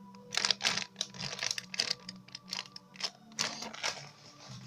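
Handling noise as a foam squishy toy is turned over and squeezed in the hands: a string of irregular soft clicks and rustles.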